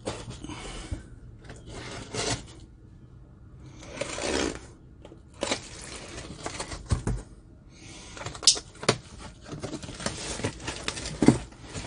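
Cardboard box being handled among packing peanuts: scraping and rustling as its packing tape is slit with a blade and its flaps are pulled open, with a few sharp clicks and taps.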